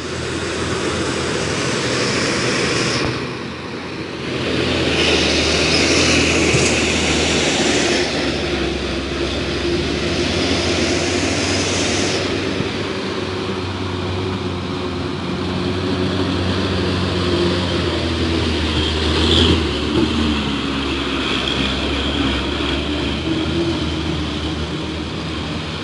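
Road traffic on a wet road: a fuel tanker truck's diesel engine running steadily under load, with tyres hissing on the wet asphalt as vehicles pass.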